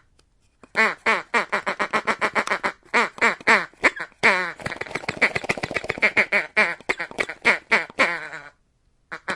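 Goats bleating in a rapid stuttering series of short calls, each falling in pitch, about five or six a second, with two brief breaks.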